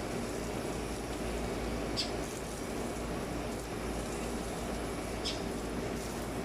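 Steady rush of running water during a small dog's bath, with a few brief faint high ticks about two to three seconds apart.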